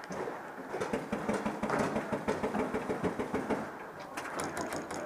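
Paintball marker firing a rapid string of shots, about seven or eight pops a second for some three seconds, then a shorter string near the end, echoing inside a small plywood bunker.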